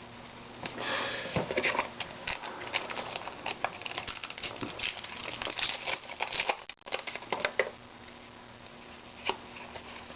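Trading cards being handled and flipped through, a quick run of papery flicks and crinkling that dies down about three-quarters of the way through, with one more tick near the end.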